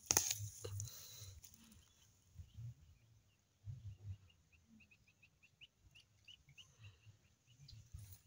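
Rustling and handling noise as a gloved hand pushes through carrot foliage, with a loud brush at the start and scattered low bumps. A bird gives a run of short high chirps, about three to four a second, from about two seconds in until near the end.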